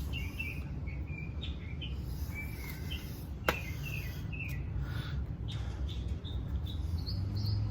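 Small birds chirping in short, repeated calls over a steady low rumble, with one sharp click about three and a half seconds in.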